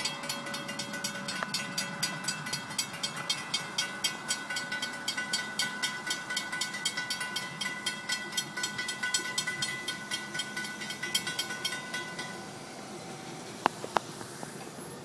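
Grade-crossing warning bell ringing in rapid, even strokes, then stopping about twelve seconds in as the crossing clears after the train has passed. A few sharp clicks follow near the end.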